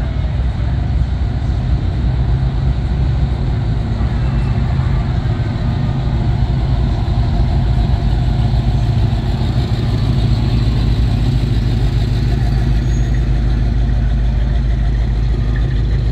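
Car engine running steadily with a deep rumble.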